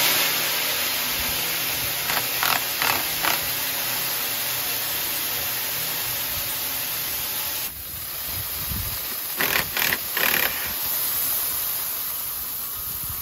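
Shelled corn pouring in a steady rushing hiss from the opened bottom of a plugged grain conveyor into a steel loader bucket, with a few brief louder surges. The sound grows quieter about eight seconds in.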